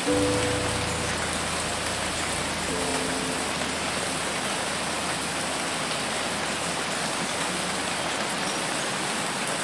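Steady hiss of heavy rain falling on floodwater, with a few faint held music notes in the first few seconds.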